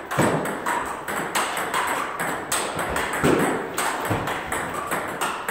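Table tennis balls clicking off paddles and bouncing on the tables in quick, irregular succession, the rallies at two tables overlapping.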